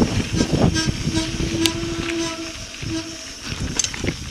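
Mountain bike rolling down a dirt trail, tyres rumbling and the bike rattling with sharp clicks, while the brakes squeal in a steady low tone that holds for about two seconds, breaks off, and returns briefly near the end as the rider slows on the descent.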